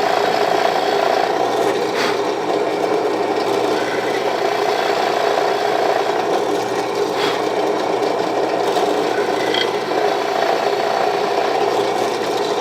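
Power drill running steadily, its bit boring a recess into a wooden handle, with a constant motor whine and a few light clicks.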